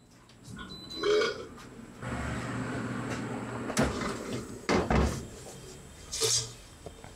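Cherry digital air fryer: a short high beep from its touch panel, then a steady rushing noise from the fryer, and plastic knocks as the basket of fries is pulled out and handled.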